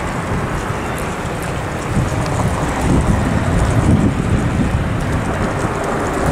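Wind buffeting the microphone outdoors: a loud, rough rumble that swells and eases, with a few faint ticks on top.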